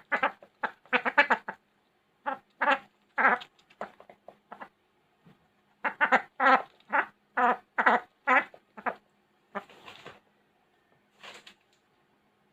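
Indian Runner duck giving many short calls in quick runs, with brief pauses between the runs.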